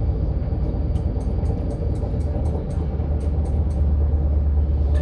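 Electric commuter train running, heard from inside the passenger cabin: a steady low rumble of wheels on the track with a faint hum, growing a little louder about halfway through. A run of faint light ticks comes between about one and four seconds in.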